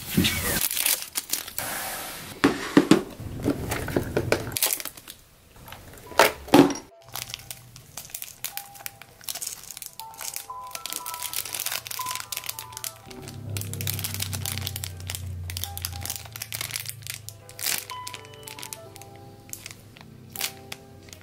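Clear plastic bag crinkling and crackling as hands handle a squishy toy inside it, over soft background music. At the start, a louder scraping rustle as a fabric storage bin is pulled out of a shelf.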